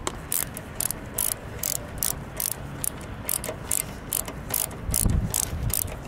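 A screwdriver scraping a worn gasket off a lawn mower carburetor's mating surface, in short, quick strokes about two to three a second. A low bump about five seconds in.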